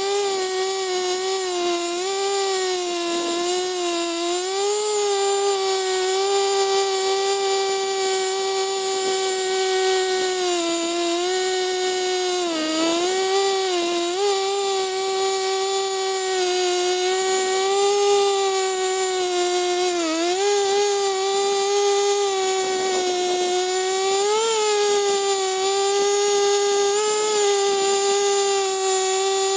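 Two-stroke chainsaw running at high revs while cutting. Its pitch dips briefly several times as the chain bites into the wood and the engine is loaded.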